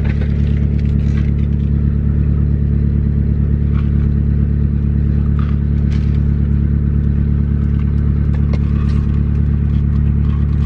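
Steady low drone of a car engine running, heard inside the cabin, with a few faint clicks and rustles over it.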